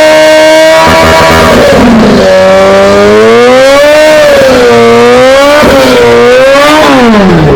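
Kawasaki Z H2's supercharged inline-four, breathing through an aftermarket Orion exhaust pipe, revved very loud. It holds steady at high revs at first, then the revs swing up and down several times, and they drop away steeply near the end.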